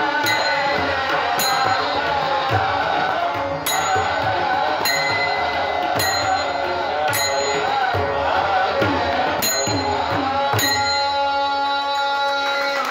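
Devotional bhajan music with drums and a sharp metallic strike about once every second. Near the end the rhythm stops and a held chord rings on.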